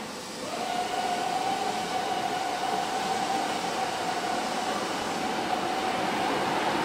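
Five-axis CNC router running as its head moves across the machine: a steady whine that starts about half a second in, over a rushing machine noise.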